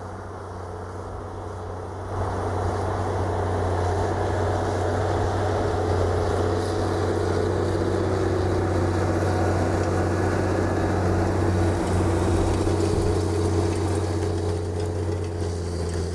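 Tractor engine running steadily under load as it pulls a zonal tillage implement through dry ground, with the rushing noise of the discs, ripper tine and crumble roller working the soil. It gets suddenly louder about two seconds in.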